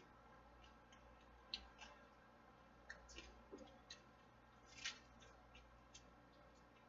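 Faint eating sounds of a person having noodle soup with chopsticks: scattered short clicks and wet mouth smacks, about seven in all, the loudest about five seconds in.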